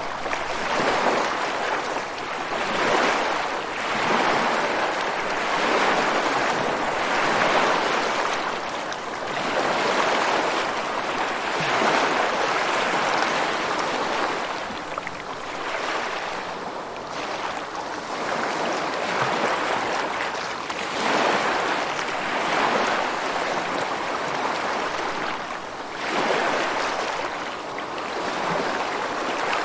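Ocean waves breaking and washing ashore: a continuous rushing that swells and eases every couple of seconds.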